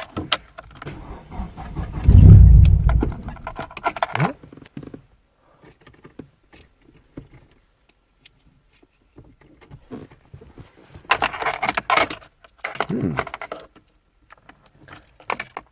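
Ignition keys jangling, and about two seconds in a short heavy low rumble lasting about a second as the Nissan 200SX's engine is cranked and briefly fires on a start attempt. More key jangling and clatter around eleven seconds in.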